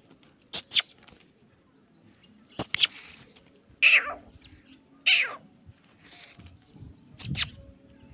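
Black francolin calling: sharp, high, harsh notes in pairs, and two calls about four and five seconds in that fall steeply in pitch.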